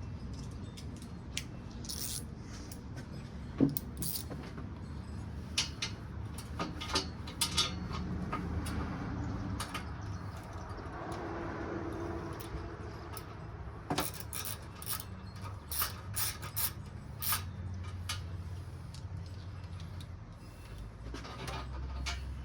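Scattered metallic clinks and knocks as a stainless steel long-tube header is worked into the engine bay and bumps against metal parts, with one sharp knock a few seconds in.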